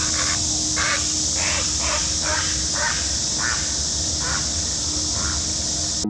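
Great blue heron flushed into flight, giving a run of about nine short, harsh croaks spaced roughly half a second apart, over a steady high hiss.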